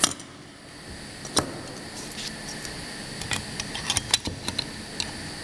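Automatic through-hole insertion machine for PCB assembly running, a steady machine hum with sharp, irregular clicks of its mechanism: a single click at the start and another about a second and a half in, then a quicker cluster of clicks near the end.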